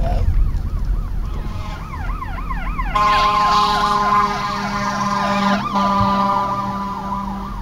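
Fire engine siren yelping, its pitch sweeping rapidly up and down. About three seconds in it grows louder and a steady horn sounds over it in two long blasts.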